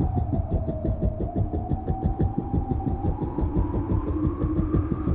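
Engine-like sound effect: fast, steady pulsing, about eight beats a second, under a whine that dips and then climbs in pitch.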